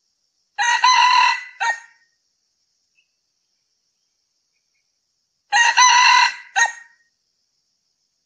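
Male red junglefowl crowing twice, about five seconds apart; each crow is a short phrase ending in a brief, clipped final note.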